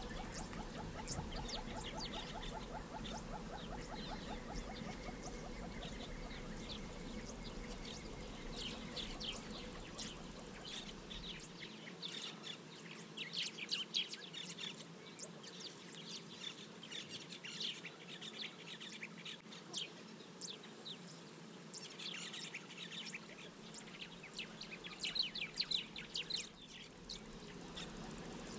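Wild birds chirping and calling, many short high calls crowding together from about a third of the way in, over a steady low hum. A fast, even pulsing trill runs through the first few seconds.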